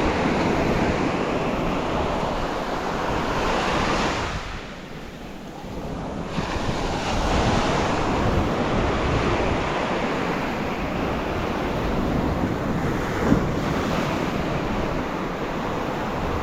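Ocean surf washing onto the beach with wind buffeting the microphone, a steady rushing noise that eases off briefly about four seconds in before building again.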